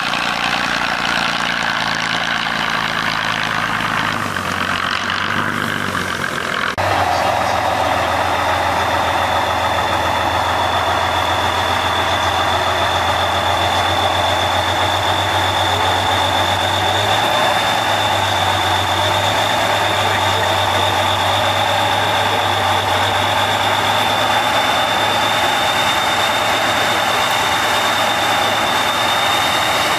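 Diesel engine of an 8x8 Tatra trial truck running steadily at low speed on a steep climb. About seven seconds in the sound steps up suddenly, and a steady high whine runs on top of the engine from then on.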